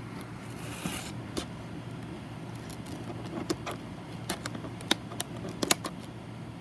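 A microphone's retail box and its packaging being handled and opened by hand: scattered small clicks and taps, the sharpest a little after halfway through, over a steady low hum.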